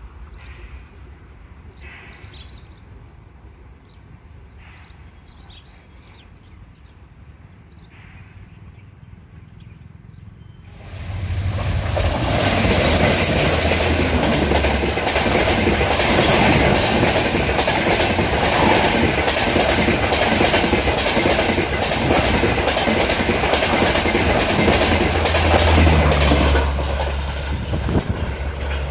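Tejas Express hauled by twin WDM3D diesel locomotives passing at full speed. After about ten fairly quiet seconds the train arrives with a sudden loud rush and a low rumble. A rapid clickety-clack of coach wheels over the rail joints runs for about fifteen seconds, then eases as the rear of the train goes by.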